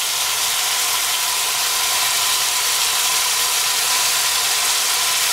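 Pork pieces and freshly added sliced onion sizzling steadily in hot oil in a frying pan.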